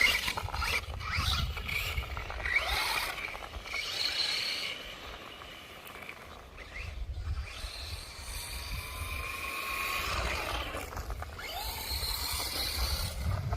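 Electric motor of a radio-controlled off-road truck whining, its pitch rising and falling as the throttle is worked, with wind rumbling on the microphone.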